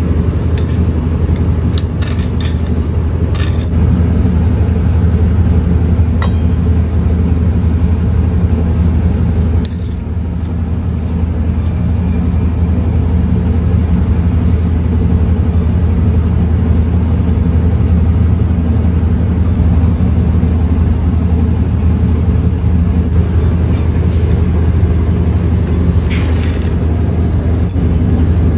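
A steady, loud low rumble with a hum from an unseen machine or traffic. Over it come several light clinks of a small metal spoon against a stone mortar and a steel bowl, most in the first few seconds, with a few more later.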